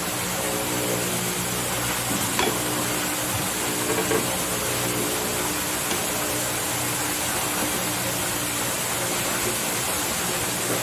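Steady sizzling of food frying in a pan, with a few faint scrapes and knocks as cherry tomatoes are grated on a hand grater.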